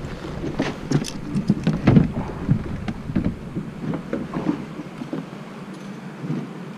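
A run of irregular knocks and clatter, thickest in the first three seconds and thinning out after, over a low rumble that drops away about five seconds in.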